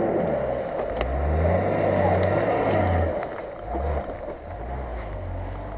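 Nissan Patrol's engine revving under load as the 4x4 crawls over roots and mud. The engine climbs in pitch and holds high, eases off about three seconds in, then picks up again.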